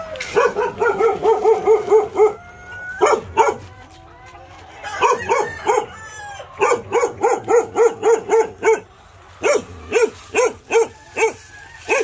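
An animal calling in quick repeated runs, about four or five short calls a second, with several pauses between the runs.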